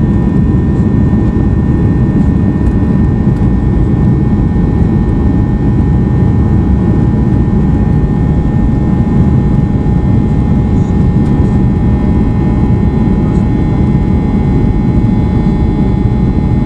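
Cabin noise of a Boeing 737-800 rolling on the ground, heard from a seat beside the wing. Its CFM56-7B turbofan engines run with a loud, steady rumble and a few steady whining tones.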